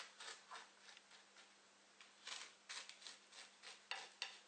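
Faint, short scraping strokes of a metal spoon pressing down the tops of soaked ladyfinger biscuits on a ceramic plate, about a dozen scattered through, over a faint steady hum.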